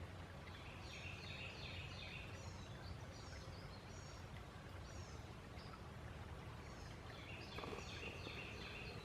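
Small birds calling outdoors: many short, falling chirps repeated in clusters over a steady low background noise, with a brief faint rustle near the end.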